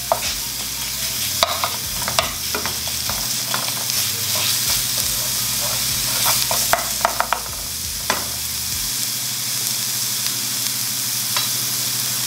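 Minced garlic frying in a little oil in a nonstick pan, sizzling steadily, while a wooden spoon stirs it with scrapes and sharp taps against the pan. The taps are frequent for about the first eight seconds, then mostly stop.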